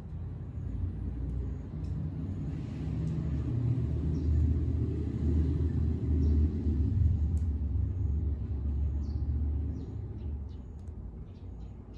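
Low rumble of a passing motor vehicle, building up over a few seconds and fading away about ten seconds in.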